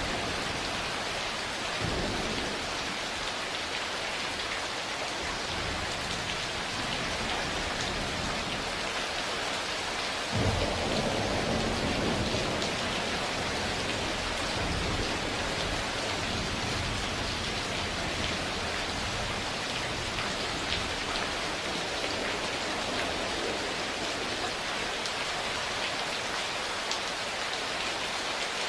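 Steady heavy rain falling, with a sharp clap of thunder about ten seconds in that rumbles on for several seconds and fades, and a fainter rumble near the start.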